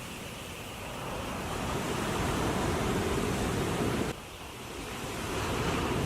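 Ocean surf washing up a beach: a rushing noise that swells, drops off sharply about four seconds in, then builds again, with wind buffeting the microphone.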